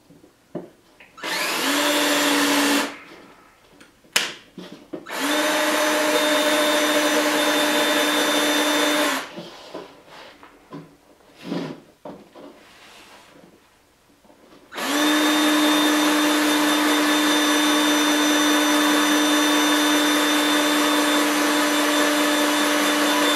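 Power drill with a countersink bit running in three bursts, countersinking the screw hole in a GoPro flat mount: a short first run that rises in pitch as the motor spins up, then about four seconds, then a long steady run of about eight seconds at the end.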